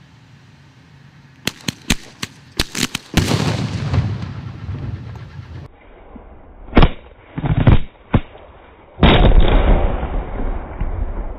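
A firework set under a watermelon detonating: a quick string of sharp cracks, then a loud blast that trails off. A similar run of cracks and a second heavy blast follow in the second half.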